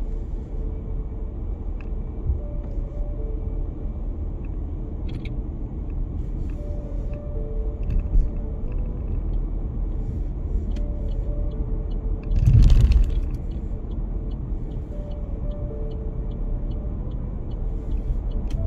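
Inside a moving car: the steady low rumble of engine and tyres on the road. There is a short louder rumble about twelve and a half seconds in.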